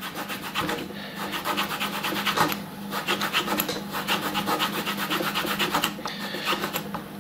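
A thin metal coin rubbed quickly back and forth on a leather strop charged with GOI polishing paste, a scratchy rubbing in runs of rapid strokes broken by short pauses.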